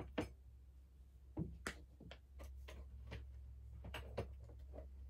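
Scattered light clicks and taps of makeup items and cases being handled and set down, over a low steady hum.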